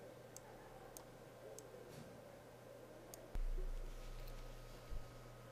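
Several computer mouse clicks, spaced a little over half a second apart. Then a sudden low thump with a rumble that fades over about a second and a half, and a second, shorter low bump near the end.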